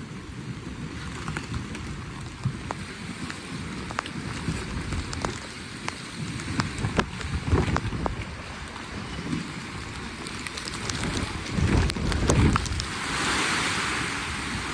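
Storm wind and rain: a steady rush with scattered sharp ticks, and heavy gusts buffeting the microphone about twelve seconds in. Near the end it turns to a louder, brighter hiss of gale-force wind, heard from under the boat's shrink-wrap cover.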